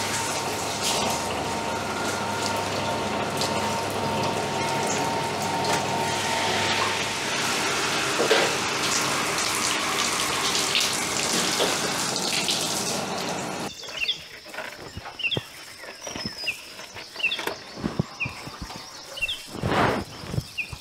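Rubber sheeting mill running, its rollers pressing a wet latex sheet, with a steady hum and a rushing, splashing noise like running water. About two-thirds of the way through it gives way to birds chirping in short falling notes over a steady high whine, with a few thumps near the end.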